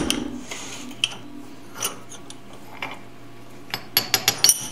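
Metal-on-metal knocks and clicks from the Gaggia Classic steam valve and a cast iron bench vise: a loud knock with a short ring right at the start, a few scattered clicks, then a quick run of about five sharp taps near the end as the threaded valve is struck against the vise jaw.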